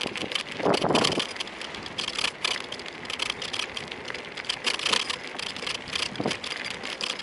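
Riding noise on a Kugoo V1 Plus electric scooter: wind rushing over the microphone with a stream of short rattling clicks. There is a louder gust about a second in.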